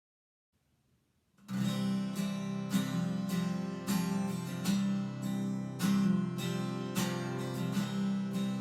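Strummed acoustic guitar music beginning about a second and a half in, with steady, regular strums.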